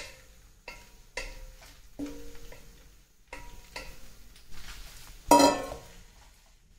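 A steel pot knocked again and again with a wooden spatula to shake noodles out into a frying pan, each knock ringing briefly. About five seconds in comes one louder clank as the pot is set down.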